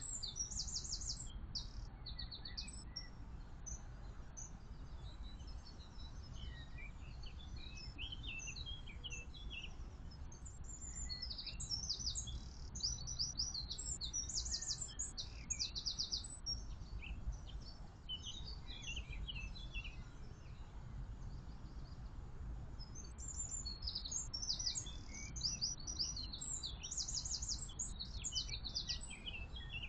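Several songbirds singing, with rapid trills and chirps coming in bursts, busiest in the middle and near the end, over a steady low rumble.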